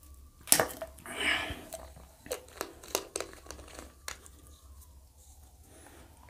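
Plastic soft-drink bottle being handled after a drink: a sharp click about half a second in, a short breathy hiss, then a run of small clicks and crinkles as the screw cap is turned back on.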